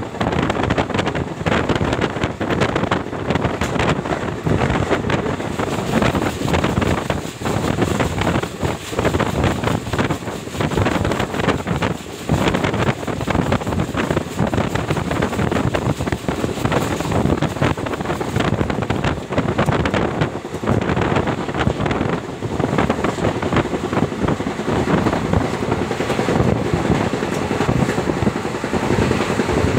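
Wind rushing in at an open express-train coach door at full speed, buffeting the microphone, over the steady rumble of the coach's wheels on the track with frequent short knocks.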